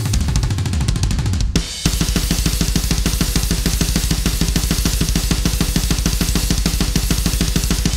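Heavy metal drum kit playing fast. A run of low drum hits falls in pitch, then a brief break comes about one and a half seconds in, followed by a rapid, steady pounding beat of bass drum, snare and cymbals.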